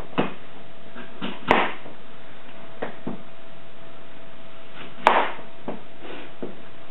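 Kitchen knife cutting through a green apple and knocking on a cutting board: a few irregular knocks, the sharpest about a second and a half in and about five seconds in, over a faint steady hum.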